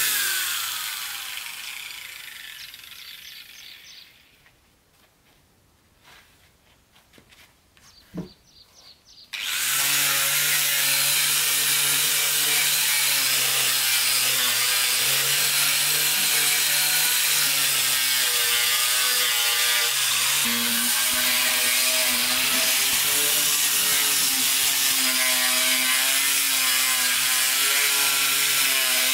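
Handheld electric power tool sanding wood: its motor winds down with a falling whine after being switched off, then a few seconds of near quiet with small knocks and one thump. About nine seconds in it starts again and runs steadily against the wood, its pitch wavering.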